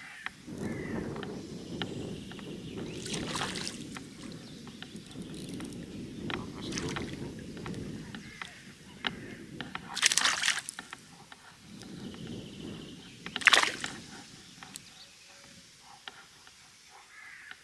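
Lake water sloshing and splashing in the shallows while a hooked perch is reeled in and landed. There are three louder splashes, about three, ten and thirteen seconds in.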